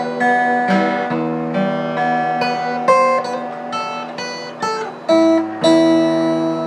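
Guitar being played: picked notes and chords, ending with two strongly struck chords about five seconds in, the last one left to ring out and fade.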